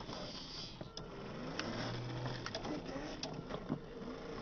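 Small electric motor and gearbox of an RC truck whining in spurts as it crawls over rough dirt and grass. The pitch rises and falls with the throttle, and there are scattered sharp clicks and snaps from the tyres on the ground.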